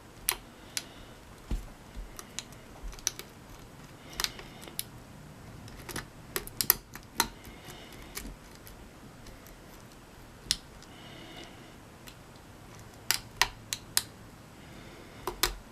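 A hook pick working the pins of a mortise pin-tumbler cylinder under tension: irregular light clicks and brief metallic scrapes, as the lock sits in a false set with a spool pin being worked.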